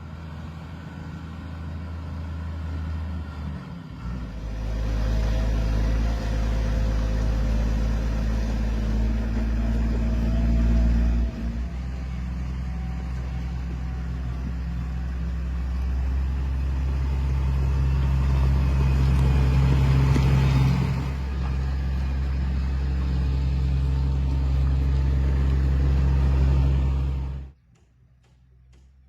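Heavy engine of road-works machinery running with a steady low hum, its pitch and load shifting a few times; the sound cuts off suddenly near the end.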